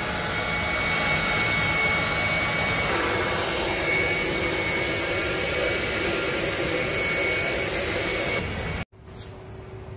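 Self-serve car wash equipment running: a steady, loud rushing hiss with a thin high whine. The sound shifts slightly about three seconds in and cuts off abruptly near the end.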